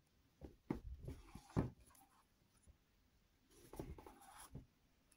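Faint handling sounds of hardcover books on a paper-covered table: a few soft knocks in the first two seconds, the loudest about a second and a half in, then a papery rustle and another knock near the end.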